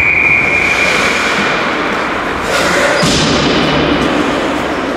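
Ice hockey game sounds in a rink: a steady high tone held for about two and a half seconds, then a thud about three seconds in, over the constant rink noise.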